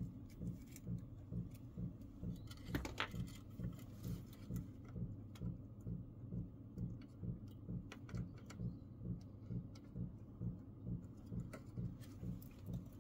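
Soldering a replacement electrolytic capacitor onto a TV circuit board: faint light clicks and taps from the iron, the solder reel and the component leads, the clearest about three seconds in. Under it runs a steady low pulse, about two and a half beats a second.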